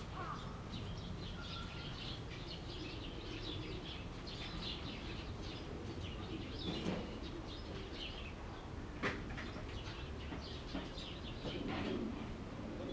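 Small birds chirping and twittering, many short calls throughout, over a steady low outdoor rumble. Two brief sharp knocks about seven and nine seconds in.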